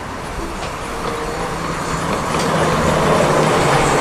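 A train running along the rails, growing steadily louder.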